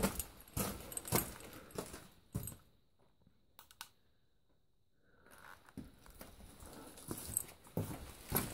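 Footsteps crunching on the loose rock and grit of a mine passage floor, about two steps a second, stopping for a couple of seconds in the middle and then picking up again, louder near the end.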